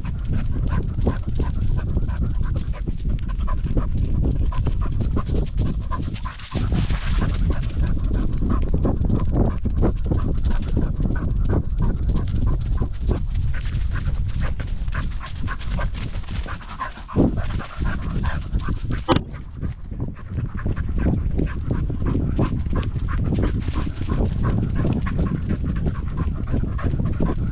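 Cocker spaniel panting hard as it runs, picked up close by a camera strapped to its body. A heavy low rumble of wind and movement on the microphone runs under it, with constant rustling and small knocks.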